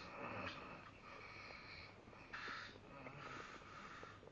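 A heavily sleeping man's quiet, wheezy breathing in the pause between snores: about three soft, airy breaths, with no snore voiced.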